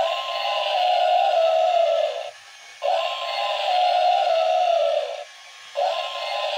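Walking mammoth toy's small built-in speaker playing a short tinny electronic sound clip, about two seconds long, three times with brief gaps.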